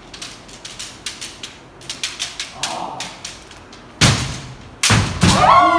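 Bamboo shinai clacking lightly against each other in a string of quick taps as two kendo fencers probe. About four seconds in come loud sudden hits with thumps, followed near the end by a long shouted kiai.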